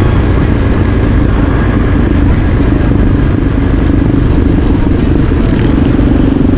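Motorcycle engine running steadily with a low rumble; a steady low hum fades in the middle and returns near the end.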